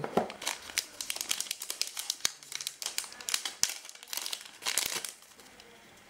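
Plastic packaging bag crinkling and crackling as hands open it and pull out a small USB charging cable. The crackles come in a dense, uneven run and stop about five seconds in.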